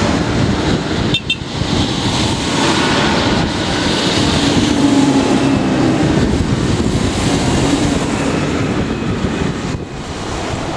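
A line of farm tractors driving past one after another, their diesel engines and tyres on the road loudest near the middle as a large tractor goes by.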